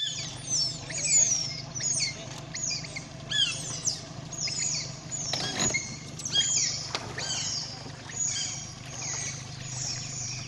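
A group of wild otters chirping: many short, high-pitched calls that slide downward, overlapping and repeating in quick succession, over a steady low hum.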